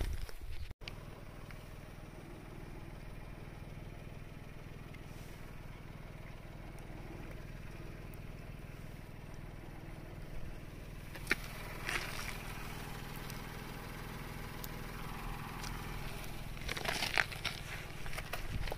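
Steady low mechanical hum, with a few short clicks and scrapes, the loudest a little past halfway and near the end.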